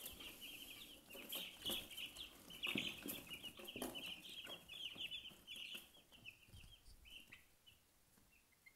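A brood of Master Gray chicks peeping: many short, high chirps overlapping without a break, thinning out near the end.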